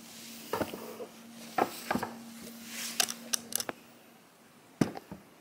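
Plastic egg cooker in its plastic wrap being handled and set on a wooden table: a string of light knocks and clicks, about eight in all, with a faint steady hum under the first two-thirds.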